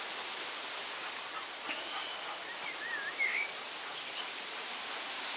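Steady gusty wind rushing and rustling through garden trees. A few short, wavering bird whistles come in the middle.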